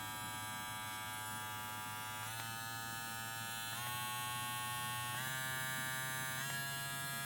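Kemei KM-2796 cordless hair clipper running with a steady buzz from its brushed motor. Its pitch steps up four times, once every second and a half or so, as the motor speed is raised a setting at a time.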